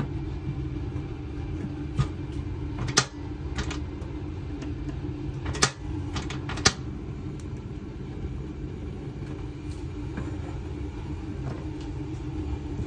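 Stove burner running on a high flame under a cooking pot, a steady low rumble with a hum, broken by a few sharp knocks of cookware in the first half.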